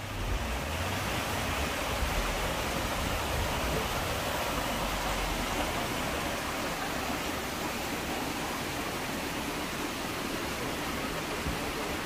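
Mountain waterfall: a steady, even rush of falling water.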